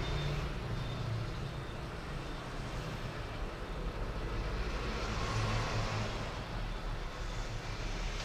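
Steady background rumble with hiss and no distinct events, like distant road traffic.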